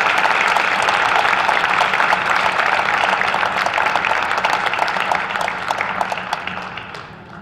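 Crowd applauding, many hands clapping at once, the clapping dying away over the last two seconds.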